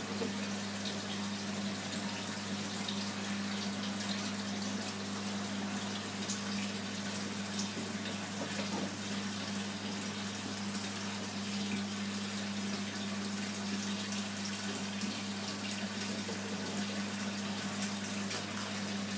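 Aquarium filter running: a steady rush of circulating water over a constant low electrical hum from its pump.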